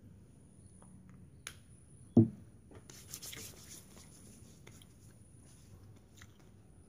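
Faint rustling and small clicks of hands handling a small snack wrapper. There is one short low thump about two seconds in.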